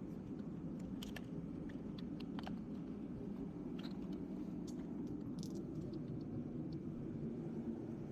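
Light metallic clicks and clinks of hand tools, scattered through, over a steady low hum.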